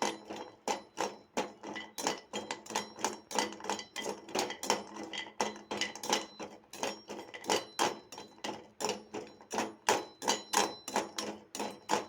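A spoon stirring pieces of dry ginger being dry-roasted in a kadai with no oil, knocking and scraping against the pan about three times a second.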